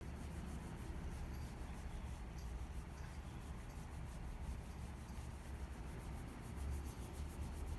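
Close rubbing and brushing of a hand stroking a ginger tabby cat's fur near the microphone, over a steady low rumble.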